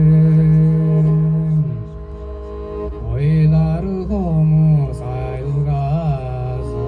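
Tuvan throat singing: a held low drone with strong overtones, then from about three seconds in the sung pitch bends up and down with a high overtone melody ringing above it.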